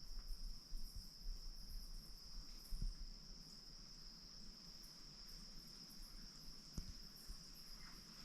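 Steady, unbroken high-pitched chorus of night insects, with a few faint soft knocks.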